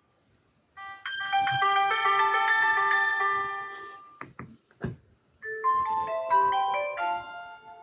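Alcatel OneTouch 2010X mobile phone playing ringtone melodies. One melody starts just under a second in and stops at about four seconds. A few sharp clicks follow, then a different melody starts about halfway through.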